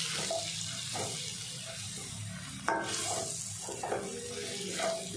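Mutton and masala frying in oil in a stainless steel kadai, sizzling steadily, while a wooden spatula stirs and scrapes through the pieces in repeated strokes.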